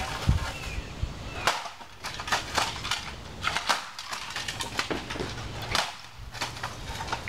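Plastic DVD player casing knocking and clattering as it is yanked about on a cord against the ground and a wooden post: irregular sharp knocks and clicks, several a second.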